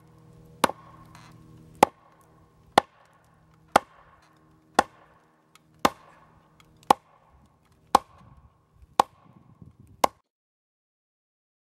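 Axe pounding the top of a log fence post to drive its sharpened end into the ground: about ten sharp blows, roughly one a second, each with a short ring. The blows stop suddenly near the end.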